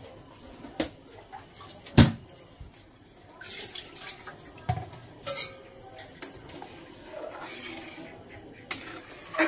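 Metal utensils clinking and knocking against an aluminium kadai and steel bowls, with one sharp knock about two seconds in that is the loudest sound. Near the end a metal spoon stirs the liquid dal in the kadai.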